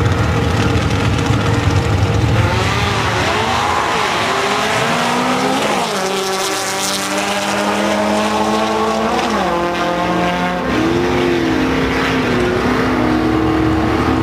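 Drag racing car engine running hard at the strip, its pitch climbing, holding and dropping several times through the run.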